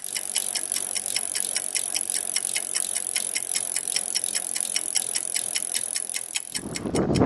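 Bicycle freewheel clicking as the wheel spins, about five even ticks a second over a faint hiss. Near the end the ticks quicken and a louder, fuller sound comes in.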